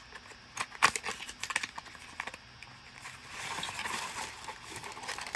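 Hands handling a plastic deodorant stick and its box, with scattered light clicks and taps. A soft rubbing or scraping runs through the last couple of seconds.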